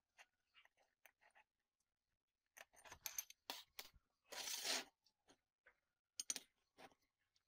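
Light clinks and taps of steel flat-bar pieces being handled and set down on a steel work table, in scattered small clusters. About four and a half seconds in there is a short hiss lasting about half a second, the loudest sound here.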